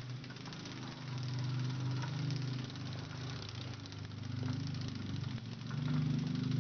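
An engine running steadily, its pitch and loudness rising and falling a little and swelling near the end.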